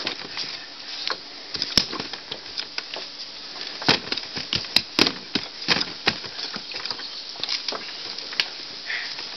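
Irregular smacks and knocks of bare fists and hands striking a freestanding rubber punching dummy, a handful of sharp hits clustered in the middle.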